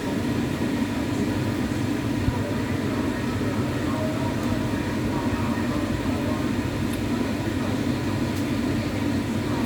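Steady low drone of background noise, even throughout.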